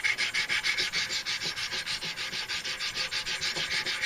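Abrasive sharpening paddles of a Wicked Edge Pro 3 guided knife sharpener stroked rapidly and evenly along a blade clamped in its vise, giving a fast rhythmic rasping of several strokes a second.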